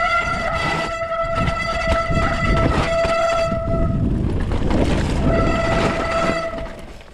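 Mountain-bike disc brakes on a wet trail squealing with one steady, high tone, first for about four seconds, then again briefly near the end, over a steady rumble of tyres on the trail.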